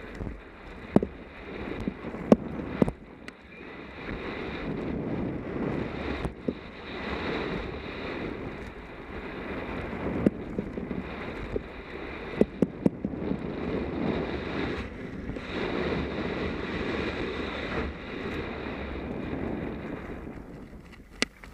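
Mountain bike rolling fast down a rough dirt trail: wind rushing over the bike-mounted microphone, with tyre noise and sharp clattering knocks as it hits bumps, several in quick succession about twelve seconds in.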